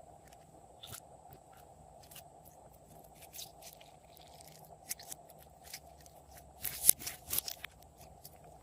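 Glossy slime with Chupa Chups candy mixed in being pressed and kneaded by hand, giving scattered sharp crackles and clicks. The densest, loudest run of crackles comes about seven seconds in, over a faint steady hum.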